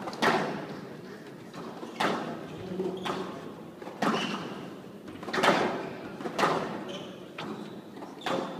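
Squash rally: the ball struck by rackets and hitting the court walls, a sharp crack every one to two seconds, each ringing briefly in the large hall.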